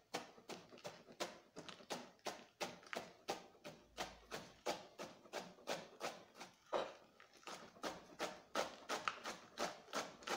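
Wide-bladed kitchen knife finely shredding a rolled lettuce leaf, the blade tapping on a plastic cutting board in a steady rhythm of about three to four cuts a second.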